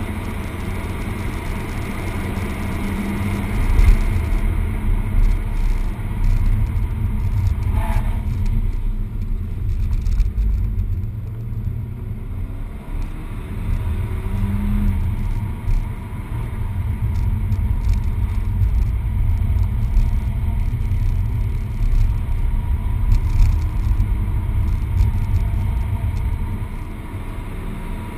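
Peugeot 208 GTi's turbocharged 1.6-litre four-cylinder engine under way at lap pace, heard from inside the cabin as a low rumble that rises and falls through the corners. A brief click about eight seconds in.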